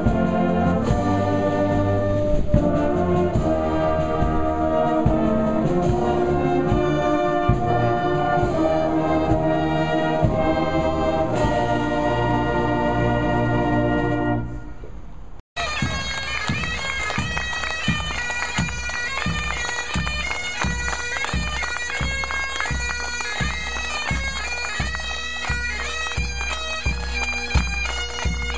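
Brass band of euphoniums and tubas playing, fading out after about fourteen seconds. After a cut, bagpipes take over with their steady drone under the tune, over a drum beating about twice a second.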